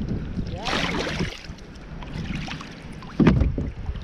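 Gear being handled in a kayak: a rustling scrape about a second in, then a loud thump against the hull near the end, over steady wind on the microphone.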